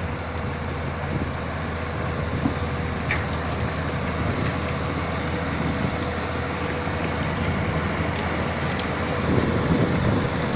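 Excavator's diesel engine running steadily, with a constant low hum.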